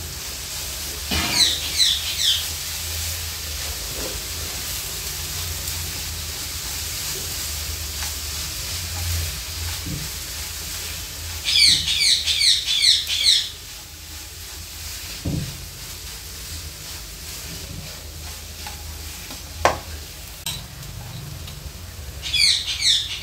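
Shredded cabbage, carrot and onion sizzling steadily as they fry in a non-stick pan, stirred with a silicone spatula that gives an occasional tap. A quick run of high chirps is heard three times over the sizzle.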